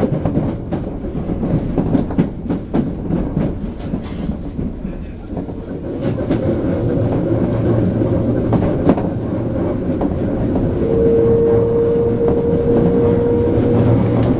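Running noise heard inside a Toei 5300-series commuter train car at speed: a continuous rumble of wheels on rail with repeated clicks from the rail joints. A steady tone joins about halfway through and grows stronger near the end.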